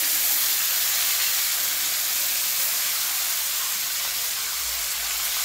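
Pieces of salted hilsa fish sizzling steadily in hot oil in an iron kadai.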